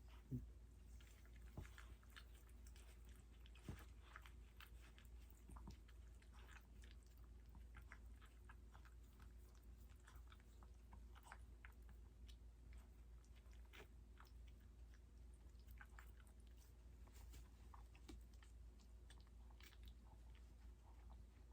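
Faint, scattered wet mouth clicks of a mother Yorkshire terrier licking and chewing as she cleans her newborn puppy.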